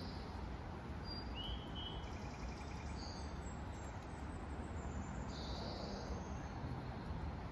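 Scattered short bird calls and one quick trill over a steady low background rumble outdoors.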